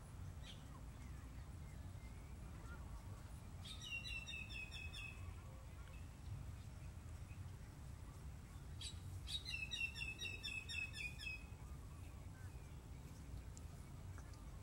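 A bird calling in two short bouts of rapid repeated high notes, about four seconds in and again near ten seconds, over a steady low outdoor rumble.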